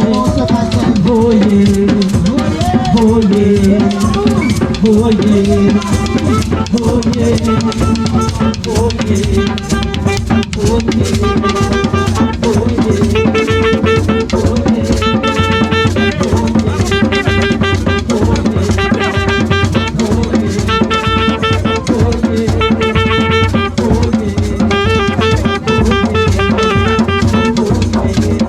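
Instrumental music: a drum kit playing a steady beat with bass drum and snare, under sustained pitched parts. From about eight seconds in, a short high melodic figure repeats about every two seconds.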